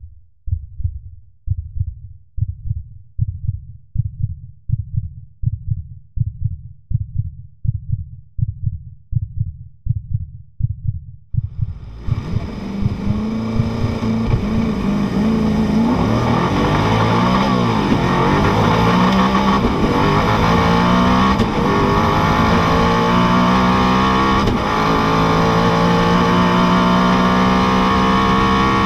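A slow heartbeat sound, low thumps a little more than once a second, for about the first twelve seconds. Then the Koenigsegg Agera RS's twin-turbo V8 at full acceleration, heard inside the cockpit, rising in pitch through several quick upshifts.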